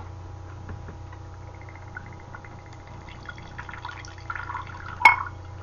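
Whisky glugging and splashing as it is poured from a glass bottle into a glass tumbler, ending with a sharp clink about five seconds in.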